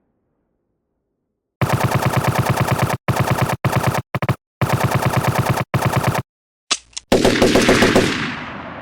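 Machine-gun sound effect: after a second and a half of silence, several bursts of rapid automatic fire separated by short gaps, then a final burst that dies away in a long echo.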